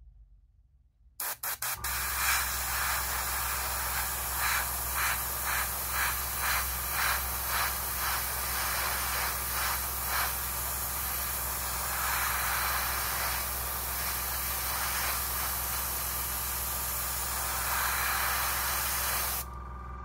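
A few clicks, then an airbrush spraying acrylic paint: a steady hiss of air that swells and fades in short pulses about twice a second for a few seconds, then holds steady, with a low hum underneath, stopping shortly before the end.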